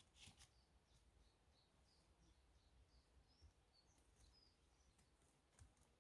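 Near silence with a small bird singing faintly: a run of short, high chirps. A couple of faint clicks come at the start and near the end.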